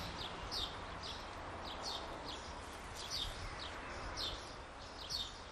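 Bird calling with a quick, steady series of short, high chirps, each falling in pitch, over a faint outdoor hiss.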